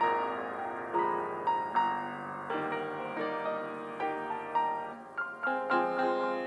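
Piano playing a slow piece, single notes struck and left to ring over chords underneath.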